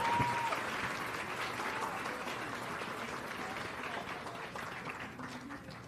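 Audience applauding, the clapping dying away gradually toward the end.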